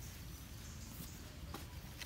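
Quiet outdoor ambience: a steady low rumble and a high even hiss, with a light click about a second and a half in.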